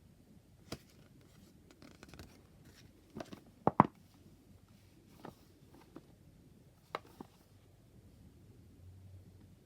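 A tarot deck and its packaging being handled by hand: scattered soft taps and clicks of card and cardboard, the loudest a quick double knock about four seconds in.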